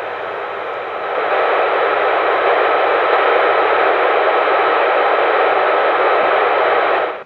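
Static hiss from a CRT SS 9900 10-metre CB radio's speaker, squelch open on an empty FM channel with no station answering the call. It grows louder about a second in as the volume is turned up, holds steady, and cuts off suddenly near the end.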